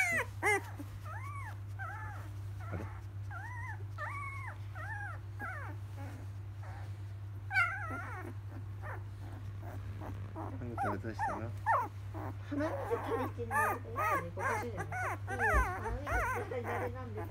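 Newborn black Labrador Retriever puppy, twelve days old, whimpering and squealing in short cries that rise and fall in pitch. There are a few near the start, one sharp cry around the middle, then a quick run of them in the last several seconds.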